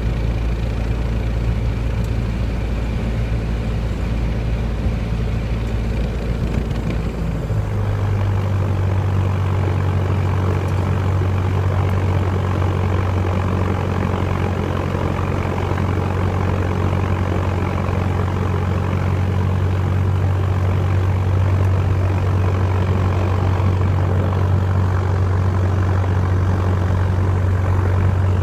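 Piper Warrior's four-cylinder Lycoming O-320 engine and propeller, heard from inside the cockpit. It runs at low power at first, then about a quarter of the way in the pitch steps up as the throttle is opened to takeoff power. It then holds a steady, loud drone through the takeoff roll.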